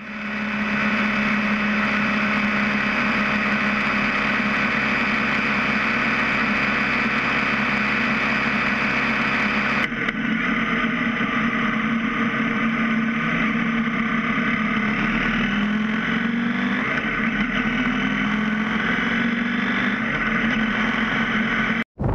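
BMW F650 GS motorcycle riding on the road, its engine running steadily under wind and road noise. After a sudden cut about halfway through, the engine note rises and falls as the bike slows into a bend.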